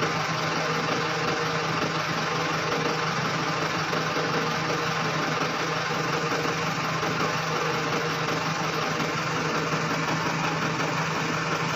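Dynapac road roller's diesel engine idling steadily.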